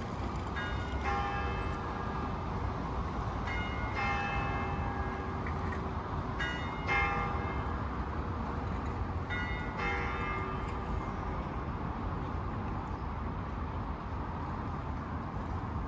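Turku Cathedral's church bells ringing: two bells of different pitch struck one after the other, a pair about every three seconds, four times over, then falling still after about eleven seconds. A steady low rumble runs underneath.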